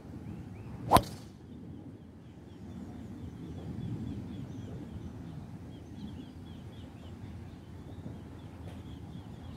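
A golf driver striking a teed ball, one sharp crack about a second in. A much fainter club strike follows near the end.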